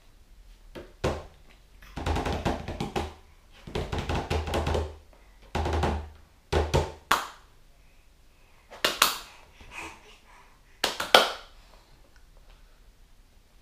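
Hands slapping and patting the plastic tray of a baby's high chair, in a run of bursts of quick strikes with short pauses between, the later ones shorter and sharper.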